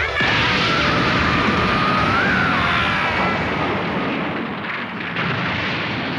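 Animated explosion sound effect: a long blast of rumbling noise with a high wavering tone over it, loud for about three seconds and then dying down gradually.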